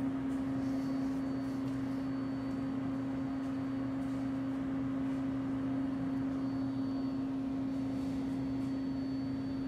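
R160 subway train humming steadily: one strong low, unchanging tone with fainter overtones above it, over a low even rumble.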